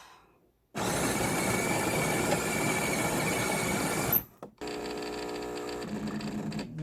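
Loud, steady rushing noise with a faint high whine for about three seconds, cutting off suddenly, followed by background music with long held notes.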